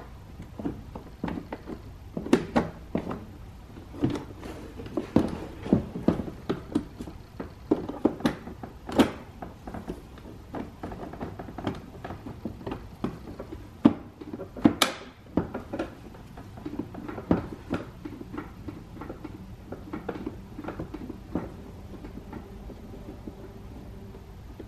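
Plastic inner door trim panel of a Kia Forte being angled and pushed onto the door: a run of irregular knocks, clicks and rattles of hard plastic, busiest over the first two-thirds and thinning out later.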